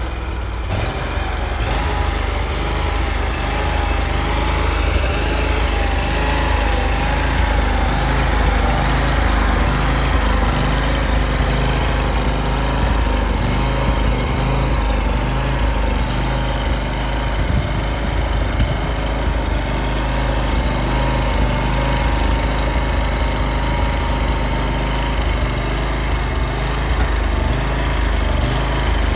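Engine of a 2017 J.P. Carlton self-propelled stump grinder running steadily at constant speed, with a faint wavering whine above the engine note.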